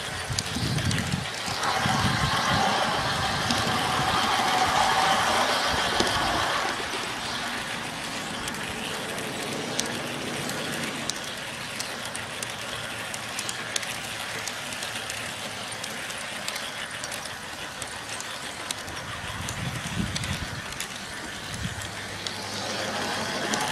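G-scale model trains running on the track, a steady rolling rumble with many small clicks throughout. It is louder for a few seconds near the start as a train passes close, then settles lower before rising again near the end.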